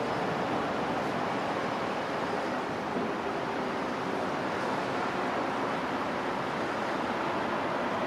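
Steady outdoor rushing noise on an open elevated railway platform: wind, with a Docklands Light Railway train running away round the curved viaduct.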